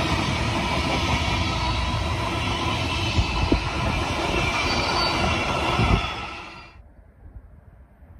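Freight train of empty container flat wagons rolling past close by: a dense rumble and rattle of wheels on rail with a thin high wheel squeal and a few sharp knocks. It cuts off abruptly about two-thirds of the way in, leaving only faint outdoor noise.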